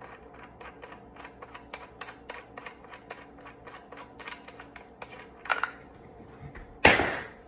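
Handling of a Micro Draco AK pistol: a run of light, quick clicks, several a second, a sharper click about five and a half seconds in, and a loud thump near the end.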